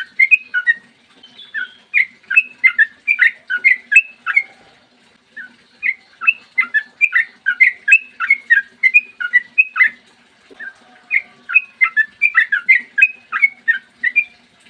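Yellow-vented bulbul (trucukan) singing long runs of rapid chirping notes that jump in pitch, in three phrases with short breaks about five and ten seconds in.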